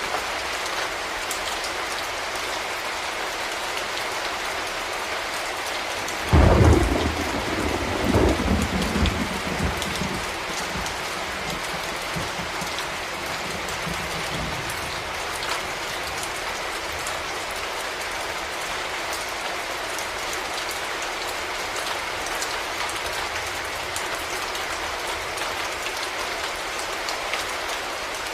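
Steady rain falling, with a sudden clap of thunder about six seconds in that rumbles on in a couple of waves for several seconds before fading away.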